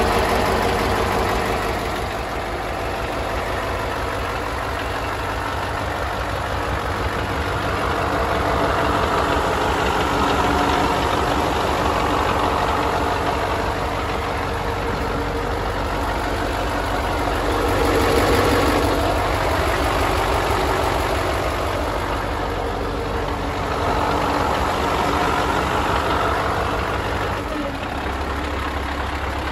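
Scania T143's 14-litre V8 diesel idling steadily, its level swelling and easing a little.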